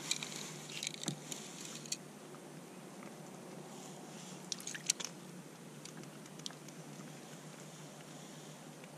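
Light clicks and crinkles from jigging a short ice-fishing rod over a hole in the ice: a cluster in the first two seconds and a few sharper ticks about five seconds in, over a faint steady background hiss.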